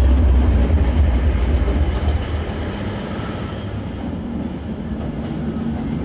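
Class 207 'Thumper' diesel-electric multiple unit running past close by. The deep throb of its underfloor English Electric diesel engine is loudest for the first two seconds or so, then eases as the coaches roll past with wheels clicking over the rail joints.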